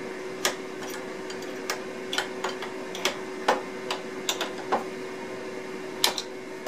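Irregular small metallic clicks and taps, about a dozen, as a plunge router is handled during a bit change, from a dovetail bit to a straight bit, over a steady faint hum.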